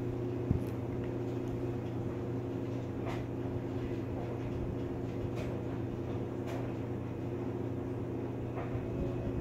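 Steady low hum made of several held tones, with a single thump about half a second in and a few faint clicks later.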